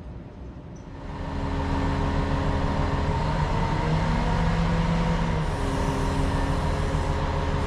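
Diesel engine of a Grove mobile crane running steadily while hoisting a solar array, coming in about a second in; its pitch drops for a couple of seconds midway, then comes back up.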